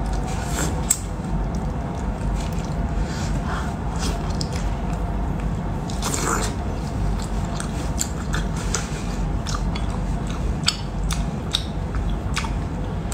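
Close-up eating sounds: a woman biting and chewing shellfish, with many short wet clicks and smacks of the mouth scattered throughout.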